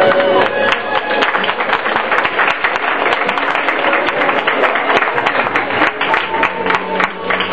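Audience clapping in applause, dense and irregular, over music playing underneath. The music's steady notes come back more clearly near the end.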